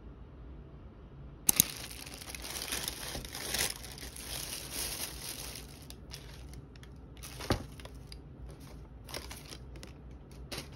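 Plastic takeout bag crinkling and rustling as it is handled and unpacked. It starts with a sharp click about a second and a half in, then thins into separate crackles, with one sharp knock near the middle.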